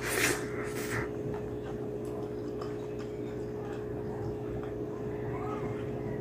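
Close-up mouth sounds of a person eating rice and curry by hand. A short loud smack as a handful is pushed into the mouth, then soft chewing with small wet clicks over a steady low hum.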